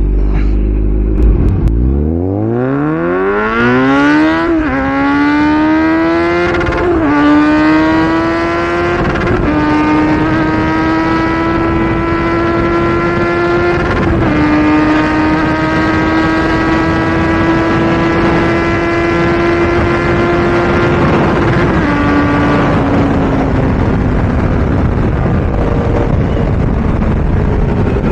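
Kawasaki inline-four motorcycle engine accelerating hard through the gears, its pitch climbing and dropping at each upshift about four and a half, seven, nine and fourteen seconds in. It then holds a steady cruise and eases off slowly after about twenty-one seconds.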